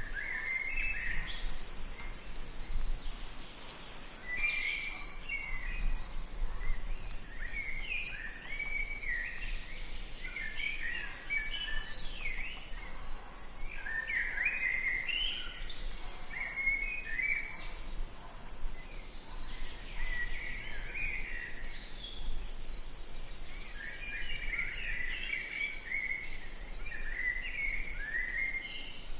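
Rainforest ambience: birds calling and chirping over a high, even pulsing call from an insect, repeating about three times every two seconds.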